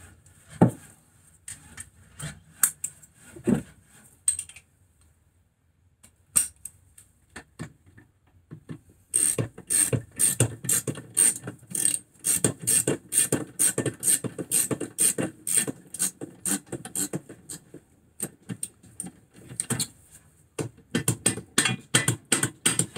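Socket ratchet wrench clicking as a 17 mm nut is wound onto a brake caliper bolt: a few scattered clicks and knocks at first, a short pause, then long runs of fast, even ratchet clicks.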